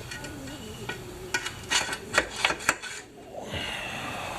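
Metal parts being handled, with several sharp clinks and knocks between about one and three seconds in, over a scrubbing, rubbing noise.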